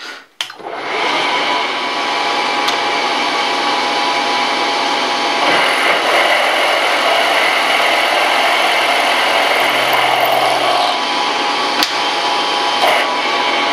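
Milling machine spindle running with a Criterion boring head, the boring bar cutting to enlarge a drilled hole in a metal plate. The steady motor whine and cutting noise start about half a second in.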